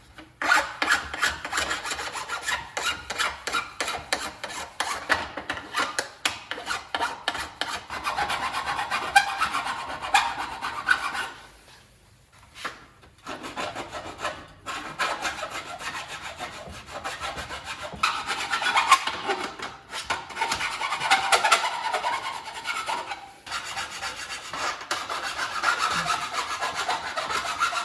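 Hand file scraping back and forth over aluminum in quick repeated strokes, cleaning the metal before welding. There is a short pause about eleven seconds in, then the filing resumes.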